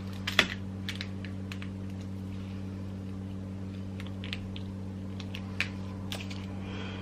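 Scattered light clicks and taps of cups and coffee things being handled, the sharpest about half a second in, over a steady low electrical hum.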